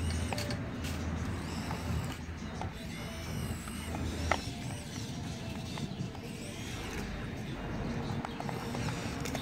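Small electric motors of a radio-controlled toy excavator whirring as the boom and bucket move, with scattered clicks of the gears and of the bucket in gravel, the sharpest about four seconds in.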